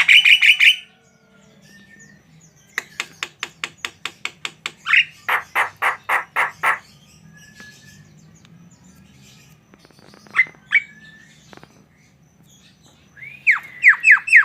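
Javan myna singing in rapid runs of repeated harsh, chattering notes, several series a few seconds apart with short single calls between.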